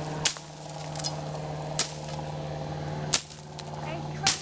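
Dry sticks snapping with sharp cracks, four of them about a second and a half apart, as brush is broken or stepped on.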